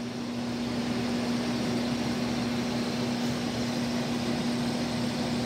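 Grow-tent fans running: a steady whooshing whir with one unchanging humming tone underneath.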